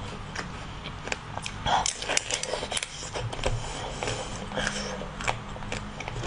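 Eating sounds: a watermelon-slice-shaped sweet is bitten and chewed, giving many sharp crackles and clicks, loudest around two seconds in.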